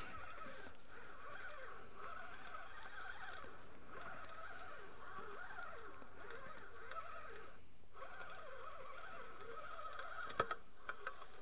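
Fishing reel being cranked against a hooked fish, a whirring that wavers in pitch with the turns of the handle and pauses briefly twice. A sharp click about ten seconds in, with a few lighter clicks after it.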